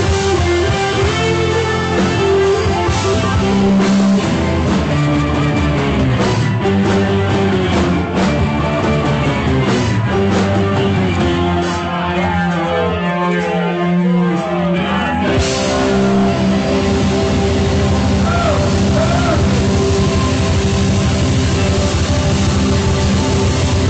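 Rock music led by guitar, with sustained chords and a fast run of notes around the middle.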